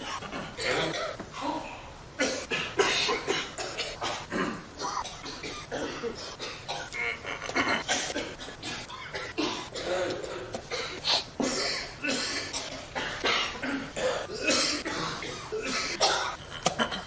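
A group of people coughing over and over, the coughs overlapping one another throughout, with some laughter mixed in.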